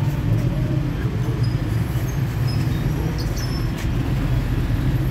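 A steady low rumble, with a few faint short high chirps over it.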